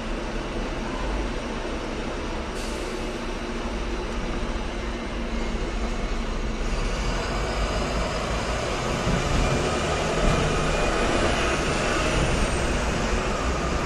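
Hong Kong double-deck electric tram running on its rails, heard from on board. The rolling rumble grows louder from about halfway through.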